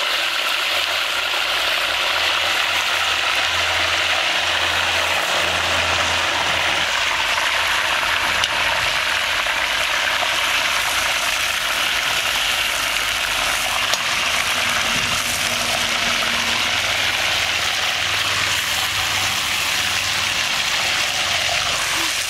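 Whole marinated chickens sizzling steadily in hot ghee in a large black iron kadai, with a couple of light knocks as a metal slotted spoon turns them in the pan.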